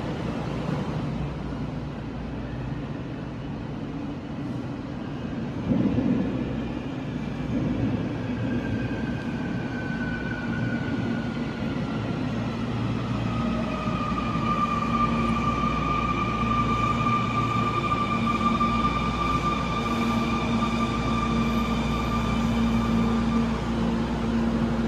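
Subway train pulling into an underground station behind platform screen doors, with a steady low rumble. Its motor whine falls in pitch as the train brakes, then holds steady as it comes to a stop.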